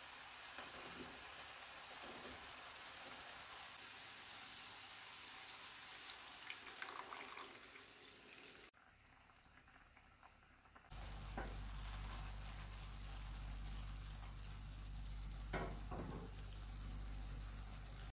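Tomato sauce sizzling in a skillet as cooked meatballs are slid in off a plate with a spatula, with a few small knocks. After a cut about nine seconds in, the sauce with the meatballs simmers with occasional pops over a steady low hum.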